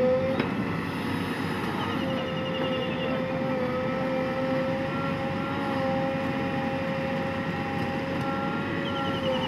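Heavy earth-moving machine's diesel engine running steadily under load, with a high whine that wavers slightly in pitch.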